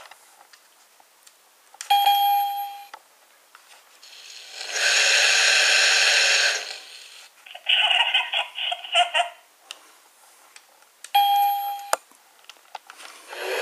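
Electronic sound effects from a Chuggington Interactive Chugger Wash toy's small speaker. A bell-like ding is followed by about two seconds of steady hissing spray noise, then a short choppy electronic sound and a second ding near the end.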